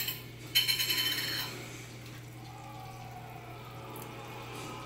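A click, then about a second of ringing metallic rattle from metal kitchenware, over a steady low hum.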